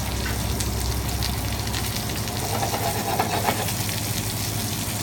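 A cornflake-crumbed plaice fillet frying in oil and butter in a pan, sizzling steadily with scattered small crackles.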